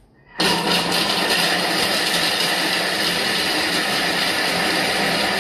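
Bimby (Thermomix) TM6 food processor chopping pieces of salami at speed 7: the motor and blade start about half a second in with a loud, steady whir that holds for about five seconds.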